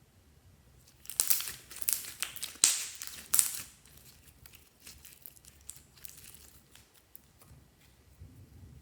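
Crinkling and crackling as slime-mixing materials are handled, in a string of loud sharp bursts over about two and a half seconds, then quieter scattered crackles.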